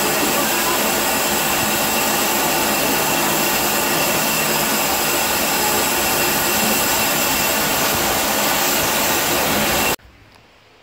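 Small steam tank locomotive blowing off steam: a loud, steady hiss that cuts off abruptly near the end.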